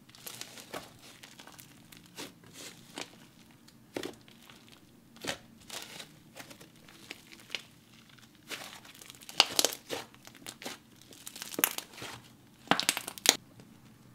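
Hands squeezing, stretching and pulling a fluffy bread-textured cloud slime, which gives off irregular soft crackles and crinkles. The crackling comes in louder clusters in the second half.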